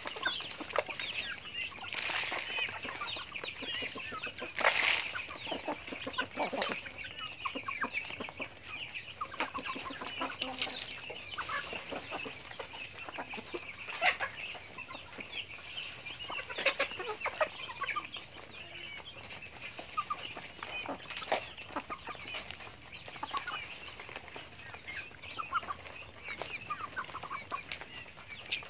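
A flock of chickens, hens and roosters, clucking and chattering without pause as they forage, with many overlapping short calls and scattered short knocks.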